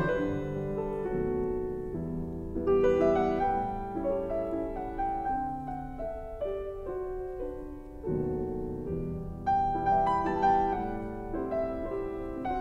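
Background piano music: chords under a melody, growing louder about three seconds in and again about ten seconds in.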